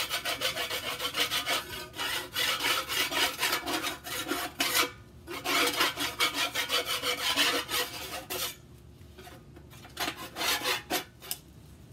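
Putty knife scraping caked-on grease off a pellet grill's metal baffle plate in quick back-and-forth strokes. It breaks off briefly about five seconds in, then falls mostly quiet after about eight seconds apart from a few short scrapes.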